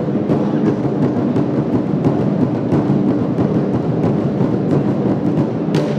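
Large Chinese single-face barrel drums beaten with wooden sticks by several drummers in a fast, dense rhythm, with one sharp crack near the end.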